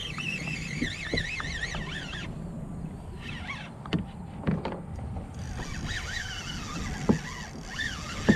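Spinning reel whining in stretches as line is cranked in against a hooked fish, its pitch wavering up and down. A few sharp knocks come in the second half.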